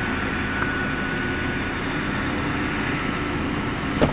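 Gas drilling rig machinery running with a steady, unbroken drone: a low hum under a thin, steady high whine. A single sharp click comes near the end.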